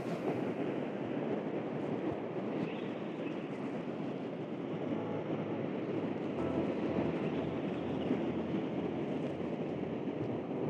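Surf washing steadily onto the beach in the shore break.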